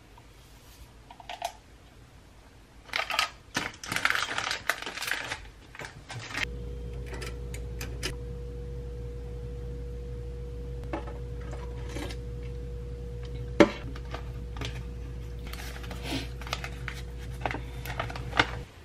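Small clicks and taps of things handled on a kitchen counter, with a few seconds of rustling about three seconds in. From about a third of the way in, a steady low mechanical hum with a thin steady tone runs under scattered knocks and clinks, one sharper knock near the middle.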